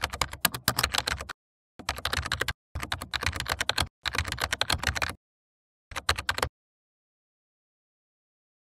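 Computer keyboard typing sound effect: five runs of rapid key clicks, each a second or so long, that stop about six and a half seconds in, followed by silence.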